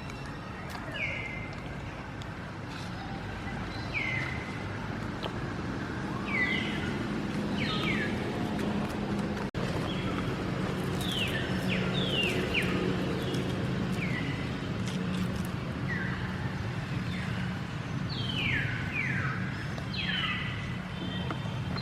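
Repeated short, high chirping calls, each sliding down in pitch, coming irregularly every second or so over a low steady hum.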